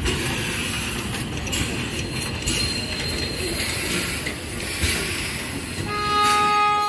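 A train running on the rails, a steady noisy rumble with a few sharp knocks. Near the end its horn sounds one steady tone for about a second, cut off abruptly.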